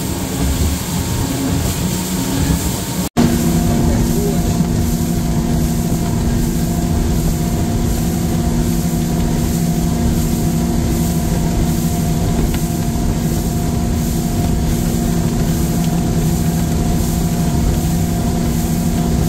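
Outboard motor running steadily as a boat travels, with the rush of wind and water. The sound drops out for an instant about three seconds in, then the engine's steady hum returns, stronger.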